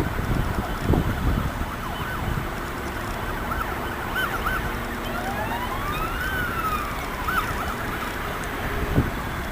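Emergency vehicle siren: several short warbling yelps and one long wail that rises and falls, over a steady low background rumble.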